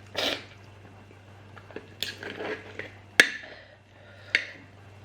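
Cutlery clinking and scraping on a plate of curry and rice, with two sharp clinks about three and four seconds in.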